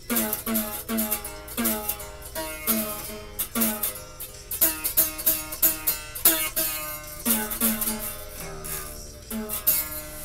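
A guitar picked one note at a time, playing a simple melody. Several notes a second, each ringing briefly and fading before the next, with a short break in the line about two thirds of the way through.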